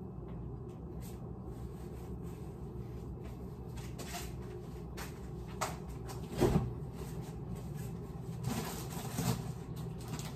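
Kitchen handling sounds at the counter: a few knocks and bumps, like a cupboard or appliance door and items being set down, the loudest about six and a half seconds in, over a steady low hum.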